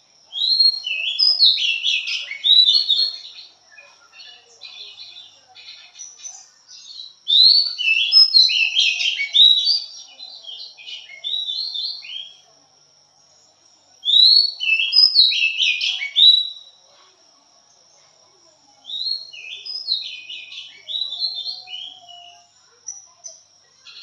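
Oriental magpie-robin singing in four loud bursts of rapid, varied whistled phrases, with short pauses between them.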